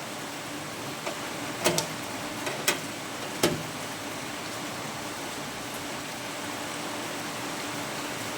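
Several sharp taps and knocks of hand tools on the new sheet-steel lip as it is worked into place, grouped between about one and three and a half seconds in, over a steady hiss.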